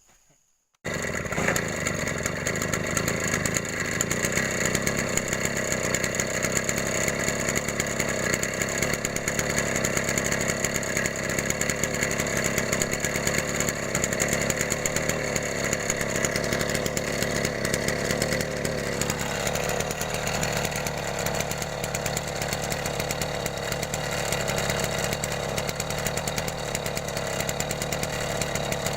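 STIHL backpack mist-blower sprayer's small two-stroke engine running steadily at speed, cutting in abruptly about a second in. Its note shifts a little about two-thirds of the way through.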